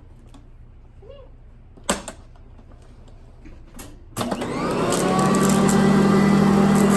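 Sanitaire upright vacuum cleaner switched on about four seconds in, its motor spinning up over about a second to a loud, steady running hum. A sharp click comes earlier, about two seconds in.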